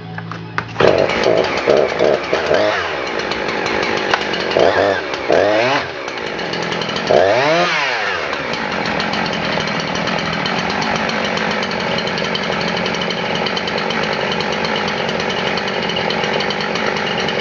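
A Husqvarna 350 two-stroke chainsaw starts up under a second in and is revved up and down three times, then settles into a steady run.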